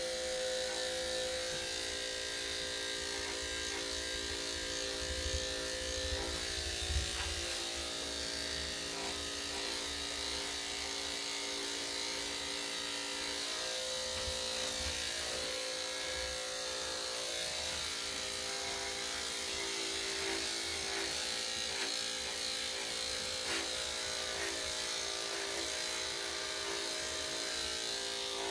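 Electric dog grooming clippers running with a steady hum, with a few small clicks.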